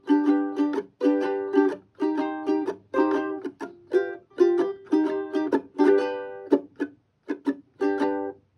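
Ukulele strummed in a rhythmic down-and-up pattern through G and G7 chords, with muted percussive chucks between strums.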